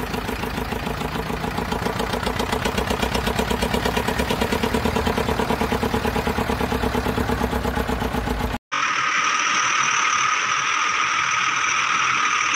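Tractor engine running at idle with a rapid, even putt-putt beat. About eight and a half seconds in it cuts off abruptly, and a different steady hissing engine sound with a high whine takes over.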